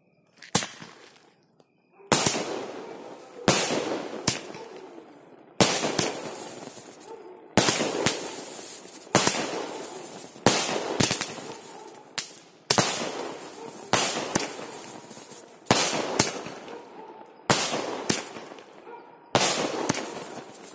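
A 30-shot fancy aerial fireworks cake firing. There is one bang about half a second in, then from about two seconds in a steady run of shots every one to two seconds, each a sharp bang that trails off into crackling noise.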